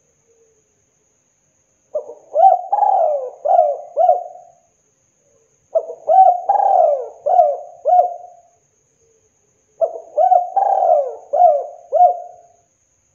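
Spotted dove cooing: three song phrases a few seconds apart, each a run of about five coo notes.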